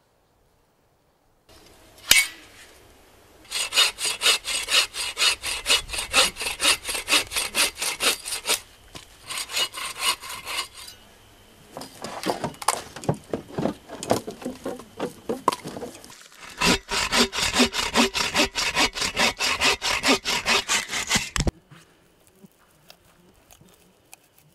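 Hand saw cutting through wood in quick, even back-and-forth strokes, in several runs with short pauses, stopping suddenly near the end.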